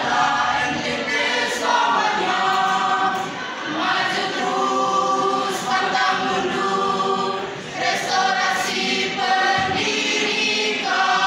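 Mixed choir of high-school students singing a march song in sustained chords, phrase after phrase with brief breaks between.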